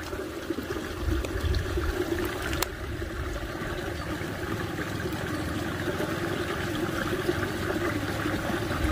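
Steady trickle of water running in a small ditch, with a low rumble underneath.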